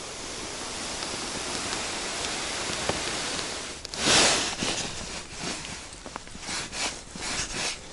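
A steady even hiss, then about four seconds in, louder irregular rustling of jacket sleeves and hands moving as a short ice-fishing rod is worked over the hole.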